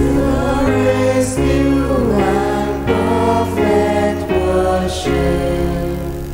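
A slow devotional hymn, sung by voices over sustained keyboard chords. The chords change about every second.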